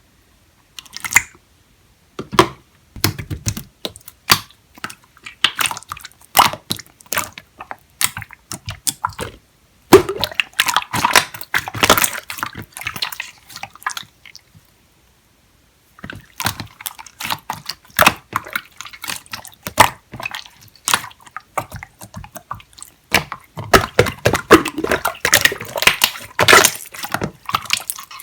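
Clear slime being squeezed and poked by hand: wet, sticky clicks and squelches in quick irregular runs, stopping for about a second and a half near the middle.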